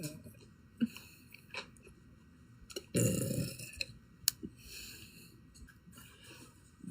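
A woman burps once, a low burp of just under a second about three seconds in, with the tail of another burp at the start and a few soft clicks in between.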